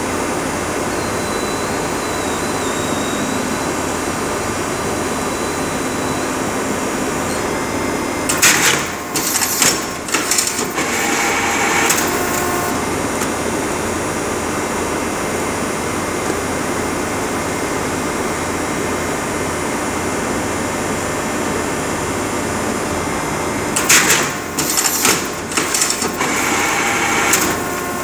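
American W409 two-ram baler running steadily while baling old corrugated cardboard. Twice, about eight seconds in and again near the end, its automatic wire tier cycles for a few seconds, giving a burst of sharp clicking and hissing over the steady hum.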